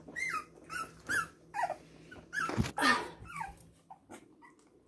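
Month-old Cavalier King Charles Spaniel puppies whimpering: a string of short high whines, each falling in pitch, with a thump about halfway through.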